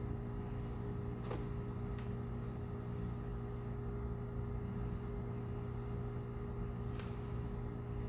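Steady low electrical hum, with a couple of faint clicks.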